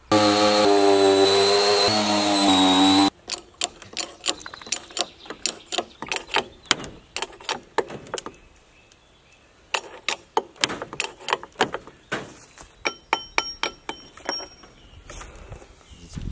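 A loud held musical tone for about three seconds, then a long run of sharp mechanical clicks, several a second. The clicks pause briefly midway and end with a few ringing metallic taps.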